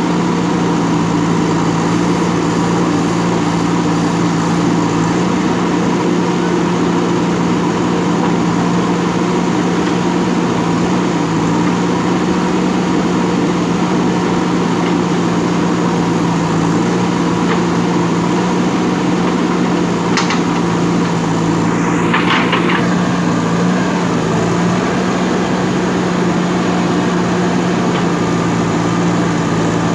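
JCB backhoe loader's diesel engine running steadily while the machine digs. A short rattle of knocks cuts through about two-thirds of the way in.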